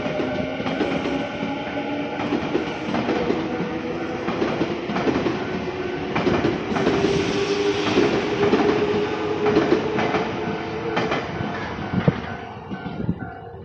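Nankai electric train passing over a level crossing: a motor whine rising slowly in pitch and the clack of wheels over rail joints, while the crossing bell keeps ringing. The train noise falls away near the end, leaving the bell.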